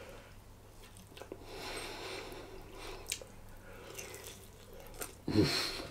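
Chewing a bite of crispy-skinned BBQ chicken thigh: faint wet mouth clicks and smacks, with a brief vocal sound near the end.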